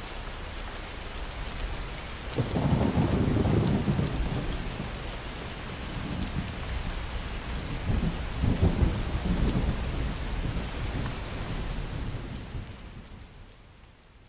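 Steady rain with two deep rolls of thunder, one about two and a half seconds in and one about eight seconds in, fading out near the end.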